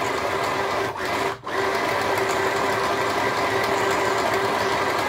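Sew Simple 12-stitch mini sewing machine running steadily while winding a bobbin. It dips briefly about a second and a half in and cuts off at the end.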